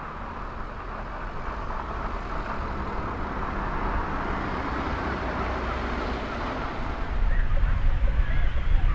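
Steady outdoor rushing noise that grows slowly louder, with a heavier low rumble coming in about seven seconds in.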